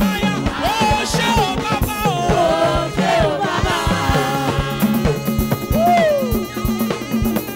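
Live church band playing an upbeat number: drum kit and hand drums keep a steady beat under a wavering melody line.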